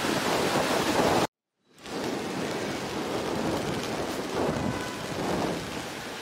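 Rain falling on an umbrella held over the microphone, a steady noisy hiss with a low rumble. It cuts out abruptly for a moment about a second in, then resumes.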